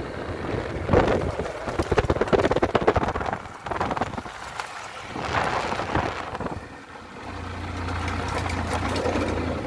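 A 150 cc motorcycle ridden fast on a dirt road, with wind buffeting the microphone in rough gusts. From about seven seconds in, a steady low engine drone comes through.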